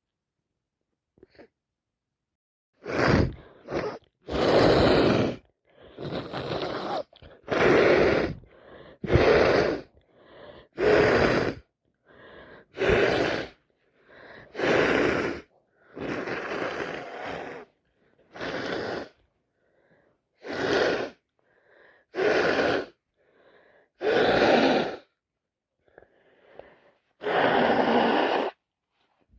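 A person with a heavy cold blowing a congested nose hard, over and over: more than a dozen loud blows starting about three seconds in, each under a second long, with a longer one near the end.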